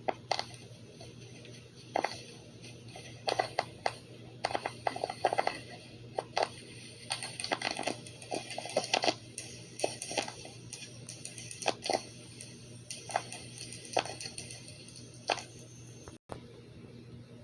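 Scattered short clicks and taps at irregular intervals, some in quick clusters, over a faint steady hum.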